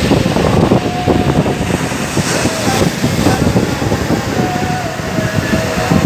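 Rough sea surf breaking and washing up the shore, mixed with strong wind buffeting the microphone.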